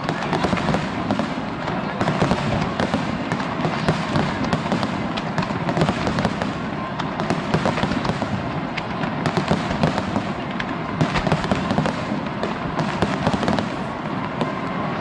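Fireworks display in full barrage: many sharp bangs and crackles every second, overlapping without a break.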